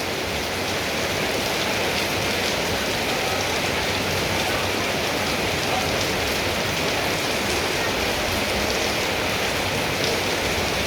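Steady rain falling, an even wash of drops with no breaks.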